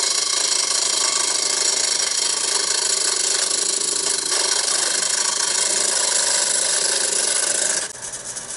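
Wood lathe running with a turning tool cutting into the spinning wooden box, a loud, steady grinding hiss over the motor's hum. Near the end the cutting stops abruptly and the lathe runs on more quietly.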